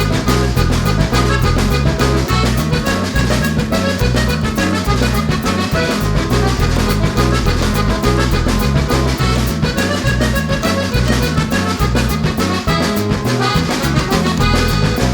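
Background music with a steady beat and a busy bass line, with accordion- or brass-like lead notes.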